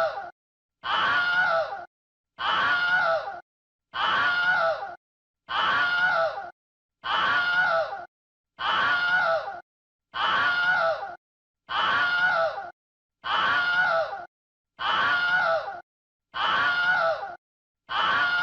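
A person's scream sound effect looped: the same short cry, about a second long with a wavering, falling pitch, repeats with a brief silence between, about once every second and a half.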